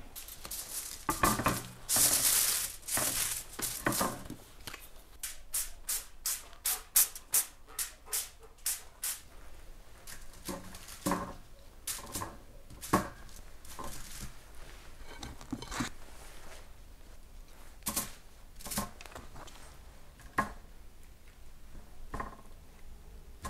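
Aluminium foil crinkling and crackling as it is handled, then a quick run of crisp clicks and scattered taps as fruit slices are set down on the foil.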